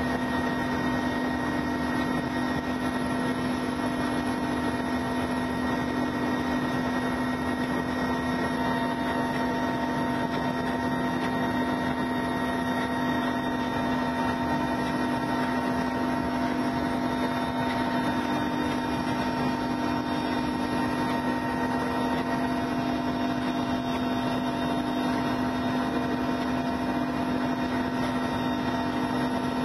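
Helicopter cabin noise: a steady drone of engine and rotors, with a constant low hum and several fainter, higher whining tones over a rushing noise.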